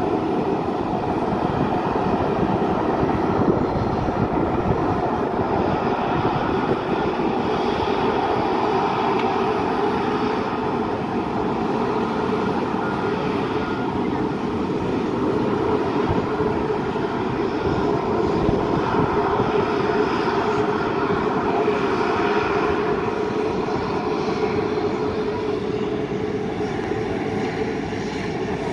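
Jet engines of a Boeing 737-400 freighter running with a steady, even noise as the aircraft rolls along the runway.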